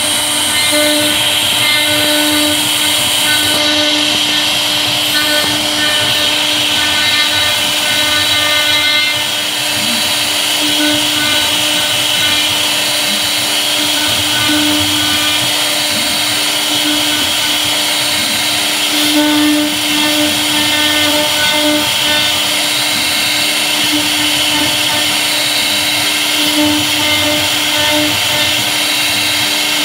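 CNC router spindle running with a V-bit carving a pattern into a board: a steady whine over the hiss of the bit cutting.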